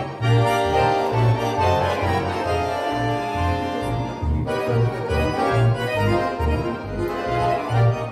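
Accordion quintet playing in a steady, driving rhythm: a bass note pulses on every beat under held chords.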